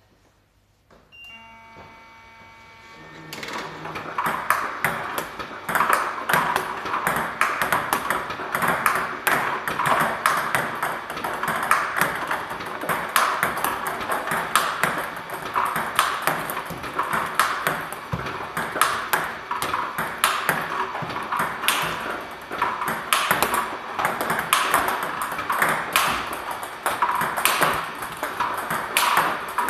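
Table tennis balls clicking in quick succession, struck by a TSP Hino-Carbon racket with tacky rubbers and bouncing on the table, in steady machine-fed practice. The hitting starts about three seconds in, after a brief hum and tone.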